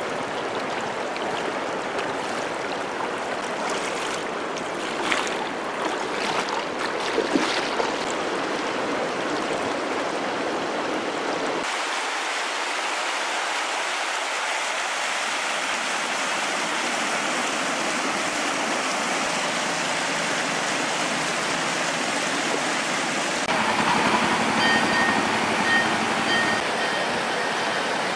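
Fast-flowing floodwater rushing over a flooded road causeway, a steady rush of water. Its tone shifts abruptly twice, about twelve and twenty-three seconds in, and there are a few brief sharper noises between four and eight seconds in.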